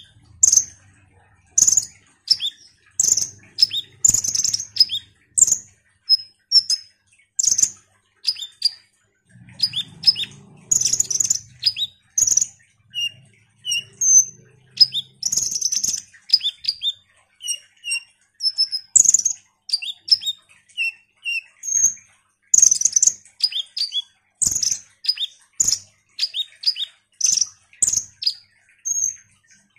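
Male Van Hasselt's sunbird (kolibri ninja) singing: a long run of short, high, sharp chirps and twitters in quick clusters with brief gaps, some notes falling in pitch.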